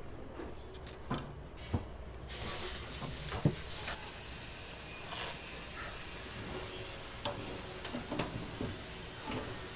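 Kitchen handling sounds: scattered sharp knocks and clicks, with a hiss that starts about two and a half seconds in and lasts about a second and a half.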